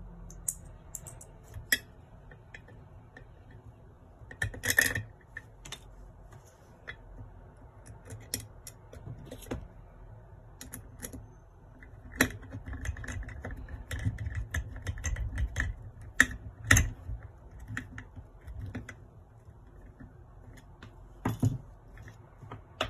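Small metal parts of a model Stirling engine kit being handled and fitted, with scattered light clicks and taps and a few louder knocks, as a screwdriver works a screw at the top of the cylinder.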